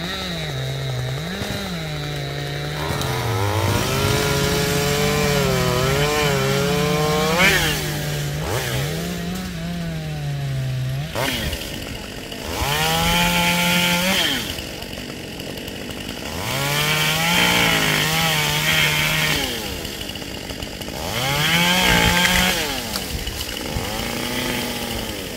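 Top-handle chainsaw running as it cuts into a tree limb, its engine pitch rising and falling with the throttle. It comes up to full speed in three louder bursts in the second half.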